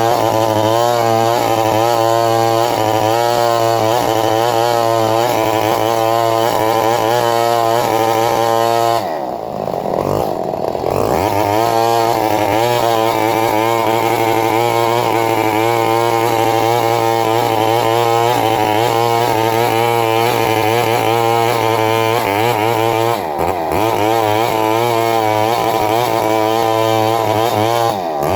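Chainsaw running at high revs, cutting coconut palm wood, its pitch wavering under load. About nine seconds in the engine sags sharply and then climbs back, and it dips briefly again around two-thirds of the way through.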